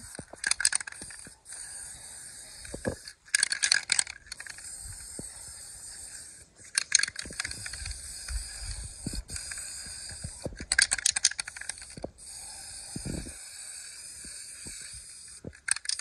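Aerosol spray paint can hissing in long sprays, broken several times by short bursts of rattling from the mixing ball as the can is shaken.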